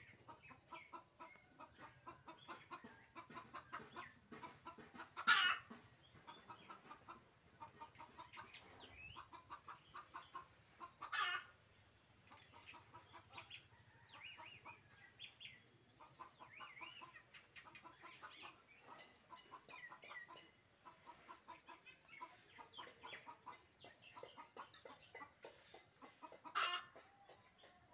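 Chickens clucking faintly in a quick, broken patter. Three louder, sharp calls stand out: about five seconds in, about eleven seconds in, and near the end.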